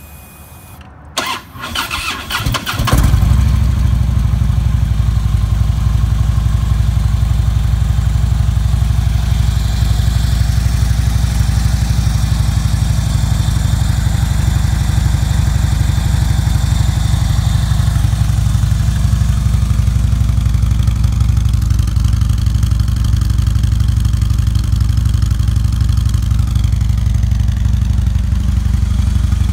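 2011 Harley-Davidson Electra Glide Police (FLHTP) V-twin engine cranked over by the electric starter for about two seconds. It catches about three seconds in and settles into a steady idle.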